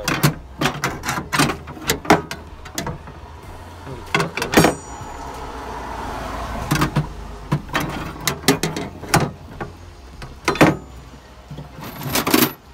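Irregular knocks, clunks and rattles of hard objects being handled and moved around close to the phone, with a busier cluster near the end.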